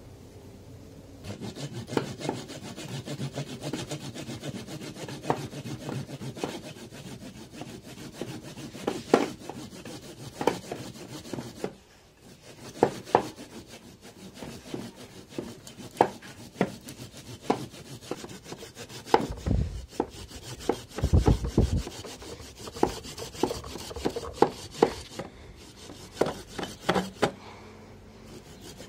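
Hand saw cutting through a live ficus bonsai trunk: uneven back-and-forth strokes of the blade rasping through the wood, with sharp clicks as the teeth catch. It starts about a second in, and two dull thumps come about two-thirds of the way through.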